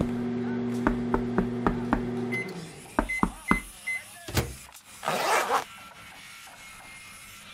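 A steady low electric hum with regular ticking that stops about two and a half seconds in. It is followed by four short high beeps, several sharp knocks and a brief hissing whoosh.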